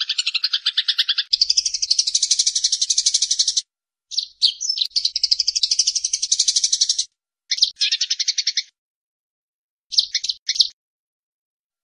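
Eurasian tree sparrows giving their harsh fighting chatter: rapid runs of chirps, about ten a second, in several bouts broken by short silent gaps, the last bout only a few clipped notes.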